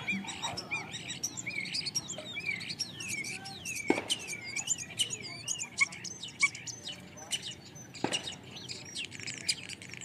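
A flock of starlings calling together, a dense chorus of overlapping chirps and up-and-down whistles. Two sharper, louder clicking notes stand out, a little before halfway and near the end.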